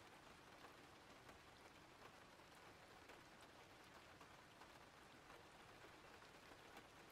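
Faint, steady rain ambience: an even patter of rainfall with scattered individual drop ticks.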